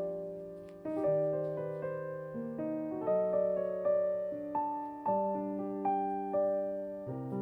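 Background piano music: gentle chords and melody notes struck and left to ring and decay.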